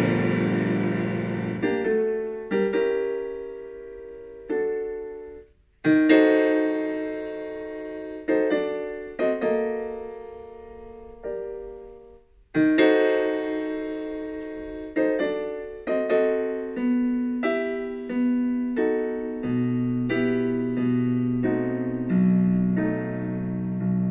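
Background piano music: a slow, gentle melody of struck notes that ring and fade, with brief pauses between phrases.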